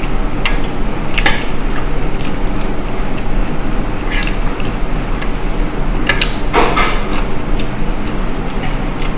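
Close-up eating sounds as bibimbap is eaten by hand from a plate: chewing and a few short clicks and smacks, from the mouth and from fingers and a spoon at the plate. These sit over a steady background hum.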